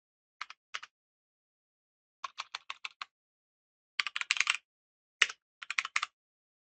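Computer keyboard typing in short bursts of key clicks: two keystrokes, then a run of about six, then a quick flurry, then a few more near the end.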